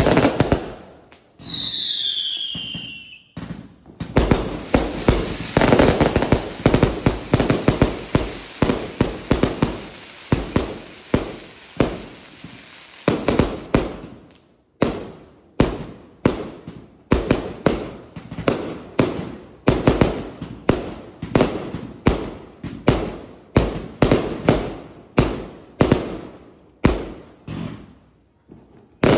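JSE 399 multi-shot fireworks cake (399 shots, 0.8 to 1.5 inch tubes) firing. About two seconds in, a falling whistle sounds. From about four seconds, a dense barrage of shots and crackling bursts runs for some ten seconds. Then shots and bursts come one after another at about two a second.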